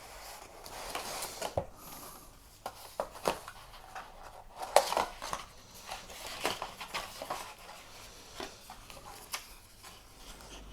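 Cardboard box and paper packaging being handled and opened by hand: scattered taps, knocks and rustles, the loudest knock about five seconds in.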